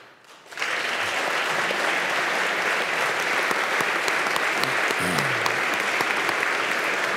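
Audience of legislators applauding, starting about half a second in and holding steady.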